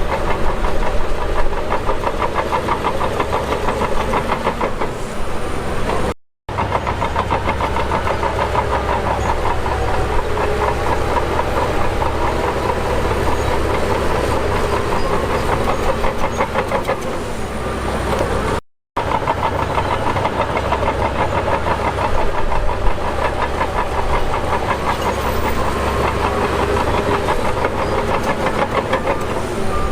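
Heavy earthmoving machine's diesel engine running steadily, with a fast continuous clatter. The sound drops out briefly twice.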